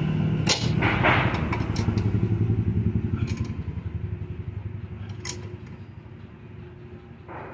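Ratchet wrench clicking rapidly as the axle hub nut is tightened, the clicking fading over several seconds, with a couple of sharp metal knocks.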